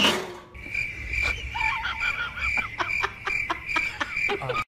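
A short burst of noise at the very start, then a background animal chorus: a steady high-pitched pulsing call with scattered short clicks and chirps.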